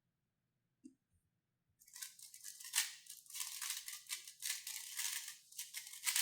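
Rapid, continuous clacking and rattling of a 3x3 speedcube being turned at full speed during a sub-five-second solve, starting about two seconds in; a single faint click comes about a second in.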